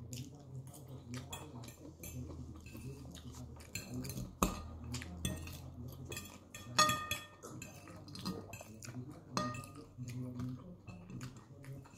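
Metal fork tapping and scraping on a ceramic plate as salad is picked up. There are many light clicks, and three sharper clinks that ring briefly, about four, seven and nine and a half seconds in; the one near seven seconds is the loudest.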